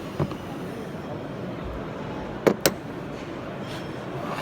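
Two sharp clicks close together, about two and a half seconds in, as metal crimping-tool heads are handled, with a fainter click near the start. Under them runs a steady background hum.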